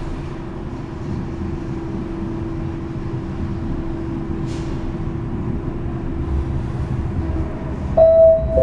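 Mitsubishi hydraulic passenger elevator car travelling between floors, with a steady hum over a low rumble. Near the end, a two-tone electronic arrival chime sounds.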